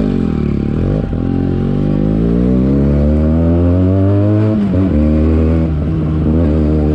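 Benelli TNT 300's parallel-twin engine accelerating under throttle: the pitch dips briefly, then climbs steadily for a few seconds. It breaks and drops back at an upshift, then runs on at a lower, steadier pitch.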